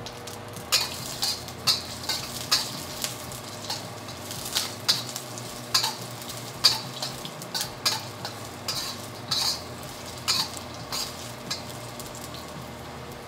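Garlic, Sichuan peppercorns and dried chili peppers sizzling in hot oil in a carbon steel wok. A metal spatula scrapes and taps against the wok as they are stirred, irregularly, about once or twice a second, over the steady sizzle.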